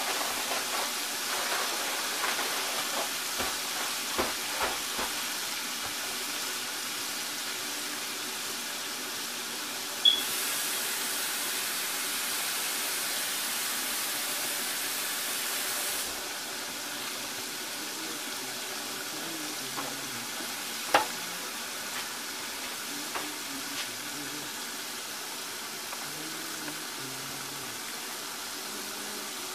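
Chicken gizzards deep-frying in a pot of hot oil: a steady sizzle of bubbling grease with small crackles. A sharp click comes about ten seconds in, the hiss brighter for several seconds after it, and another sharp click about twenty-one seconds in.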